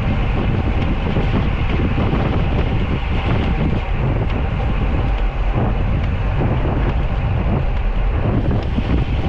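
Wind buffeting the microphone of a camera carried on a moving bicycle: a loud, steady, rumbling noise.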